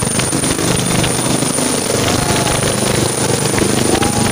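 Helicopter lifting off and climbing away close overhead, its rotor and turbine engines making a loud, steady noise, with a crowd's voices over it.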